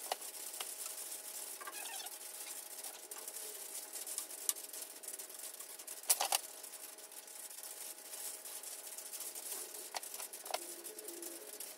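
Rain pattering steadily on a metal shop roof, faint, with a few light knocks, the clearest a little past halfway.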